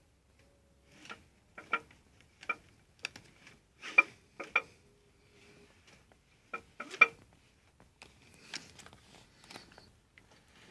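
About a dozen sharp metallic knocks at irregular intervals, each with a brief ring, from a Suzuki GSX 600 F inline-four engine as it is cranked over. The loudest come about four and seven seconds in. The owner asks whether the knock is a worn bearing shell.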